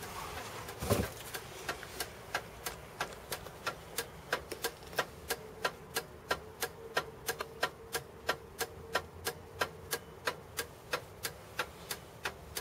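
Regular mechanical ticking, about three sharp clicks a second, with a single louder thump about a second in.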